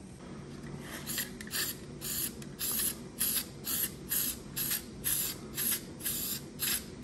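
Aerosol can of zinc weld-through primer spraying in short squirts, about two a second.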